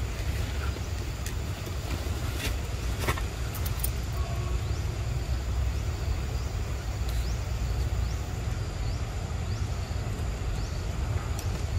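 Steady low rumble under a hiss of outdoor background noise, with a few faint clicks and several short, high chirps about two thirds of the way through.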